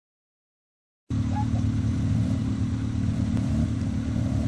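Silence for about a second, then a sudden cut in to Suzuki Jimny off-road trial vehicles' engines running with a steady low note, with faint voices.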